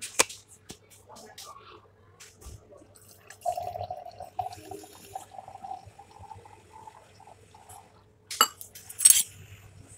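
Milk being poured into a glass mason jar over coffee and ice: a steady liquid pour for about three seconds. A few light clinks come before it, and two sharp knocks of glass or a container being set down follow near the end.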